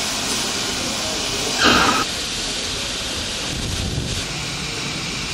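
Steam locomotive hissing steadily as steam escapes around it, with one short loud blast about a second and a half in. After about two seconds the hiss gives way to a quieter steady background noise.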